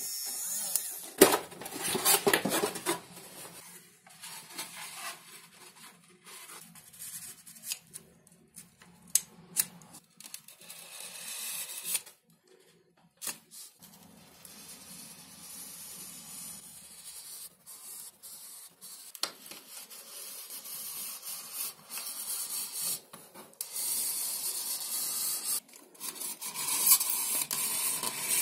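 Hand tools working 5 mm XPS foam board: scattered sharp clicks and rubbing, then scissors cutting foam. Near the end a utility knife blade is drawn through the foam with a louder, hissy scratching.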